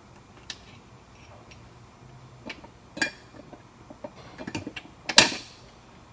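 Metal hydraulic hose fittings clinking and knocking as they are handled: a scattering of light clicks, a ringing clink about three seconds in, and the loudest metallic clank a little after five seconds.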